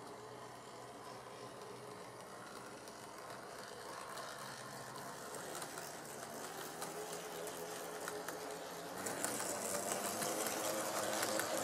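HO-scale brass model DF50 diesel locomotive and its train running on the track: a steady whirring motor-and-wheel rattle with light clicks from the rail joints. It grows louder about nine seconds in as the train passes close by.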